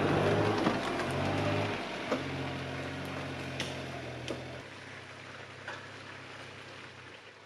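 Kei mini truck's small engine running as the truck pulls away off-road, the sound fading steadily over several seconds, with a few sharp knocks along the way.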